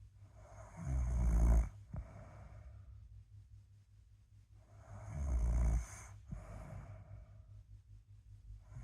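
A sleeping person snoring: two loud snores about four seconds apart, each followed by a quieter breath.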